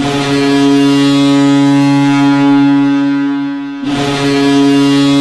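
Boston Bruins hockey goal horn sounding a long, loud, low steady blast, which breaks off briefly near four seconds in and sounds again: the signal of a home goal scored.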